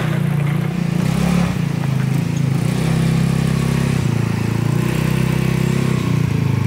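A 150cc go-kart engine running steadily as the kart creeps forward towing an unpowered rear section; only the front engine is driving.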